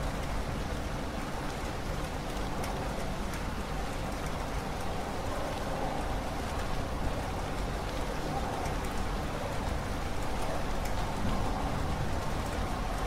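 Steady rain falling, with scattered drop ticks over an even hiss and a steady low rumble underneath.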